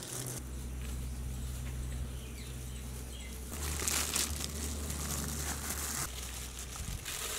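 Chicken drumsticks being tossed and patted in dry seasoned flour for their second coating: soft, papery rustling in bursts, over a low steady hum, with faint bird chirps behind.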